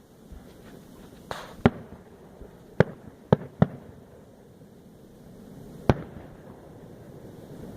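Fireworks bursting: five sharp bangs at uneven intervals over about four seconds, the first just after a short rushing whoosh.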